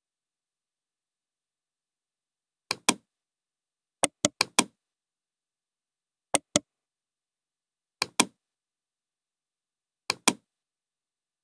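Computer mouse button clicks, coming in pairs about a fifth of a second apart, six pairs in all.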